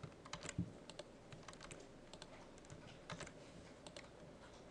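Faint computer keyboard taps, a few scattered keystrokes at a time.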